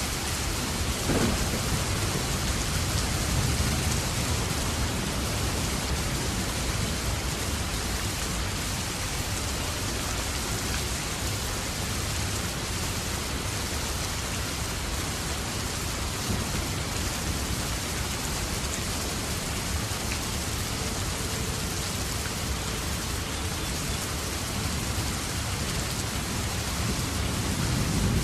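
Steady, heavy rain falling, with low rumbles of thunder swelling about a second in and again near the end.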